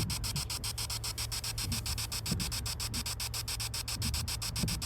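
Ghost-box app scanning through a phone speaker: a steady hiss of static chopped into rapid, even pulses, about eight a second.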